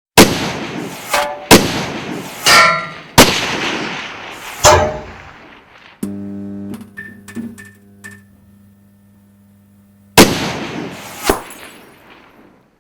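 Intro sound design: four loud cinematic impact hits in the first five seconds, each booming and fading away. A steady low hum with a few soft ticks follows, then two more hits near the end.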